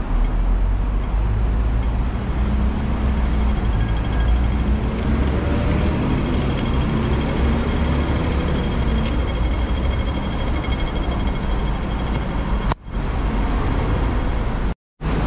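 Hong Kong double-decker electric tram running, heard on board: a steady low rumble with a faint high whine that comes and goes around the middle. The sound drops out for a moment twice near the end.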